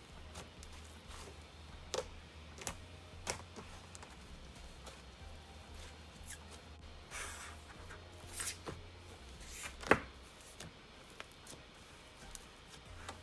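Icy slime being played with by hand, giving scattered sharp pops and clicks, the loudest about ten seconds in, with a brief soft crackling rush a little after seven seconds. A faint low hum runs underneath.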